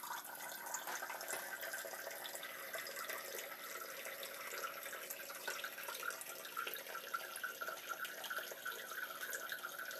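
Thin streams of water trickling steadily from the small product and waste-water tubes of an RO/DI filter into shot glasses, a continuous fluttering splash.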